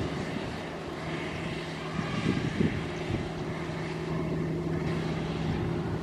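Kubota DC70 crawler rice combine harvester's diesel engine and threshing machinery running steadily at working speed, a droning hum, with a couple of brief knocks a little past two seconds in.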